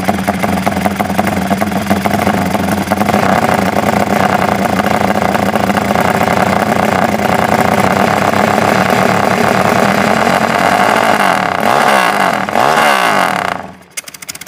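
Honda Tiger's single-cylinder four-stroke engine, bored out to 270cc and fitted with an aftermarket exhaust, running steadily with a fierce, dense note. It is revved twice near the end, then the sound cuts off. The engine is freshly rebuilt and still being run in.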